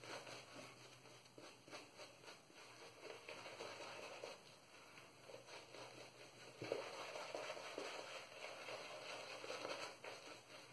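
Stirling 26mm Finest Badger shaving brush working lather over a stubbly face in circular strokes: faint, soft squishing and crackling of the lather, a little louder from about six and a half seconds in.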